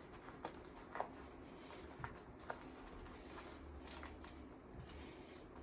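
A few faint, short clicks and light rustling from gear being handled, over quiet room tone.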